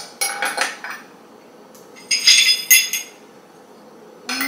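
Shards of broken glass clinking as they are picked up off a tile floor and dropped into the broken blender jar, in two short runs of clinks: just after the start and again about two seconds in.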